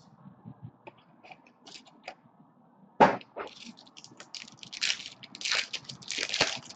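A single sharp knock about three seconds in as a trading-card box is handled on the table, followed by loud crinkling and tearing of a foil card pack being ripped open near the end.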